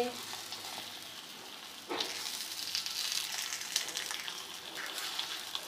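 Lachha paratha sizzling in ghee on a hot tawa, a steady hiss that jumps louder about two seconds in.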